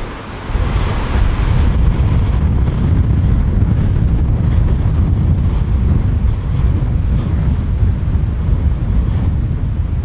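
Strong wind buffeting the microphone: a loud, steady low rumble with a rushing hiss of wind over it, a little brighter about a second in.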